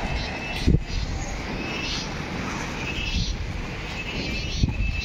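Wind buffeting the phone's microphone: an uneven low rumble that rises and falls in gusts.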